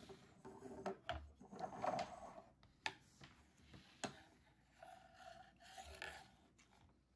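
Faint handling noises: a few sharp clicks and knocks among quieter rubbing.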